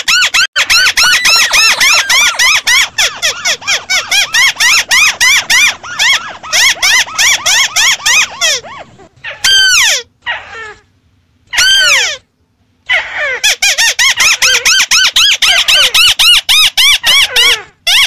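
White-browed crake calls: a fast chattering run of short notes, about five a second, each rising and falling in pitch. Two long runs are broken in the middle by pauses and a few longer, falling notes.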